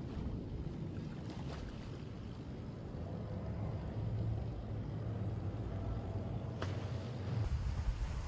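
Low, steady rumble of a small motorboat's engine as the boat passes close by, growing louder in the middle and changing abruptly near the end.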